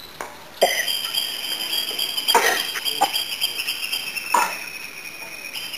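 A wooden stick knocking and scraping on rock as an Asian black bear picks it up and handles it: four sharp knocks, the first and loudest about half a second in, over a steady high-pitched hum that starts with that first knock.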